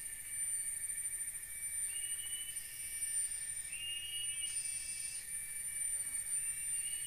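Tropical forest ambience: a steady high-pitched insect drone, with a short rising call repeating about every two seconds.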